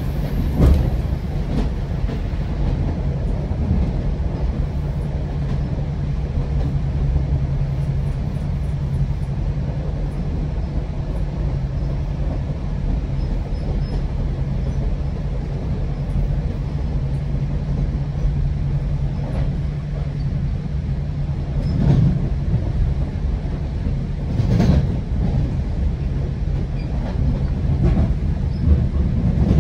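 Inside a GO Transit bilevel passenger coach running at speed: a steady low rumble and hum of the moving train, broken by a few short knocks from the running gear, about a second in and several more in the last third.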